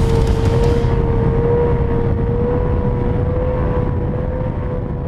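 Evinrude Intruder outboard motor running flat out, pushing a speedboat at top speed: a steady high whine that creeps slightly up in pitch over a low rumble and the rush of water and spray. The sound fades away gradually over the last couple of seconds.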